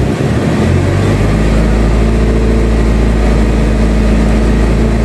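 Car engine running. About a second in it is revved up and then held at a steady higher speed.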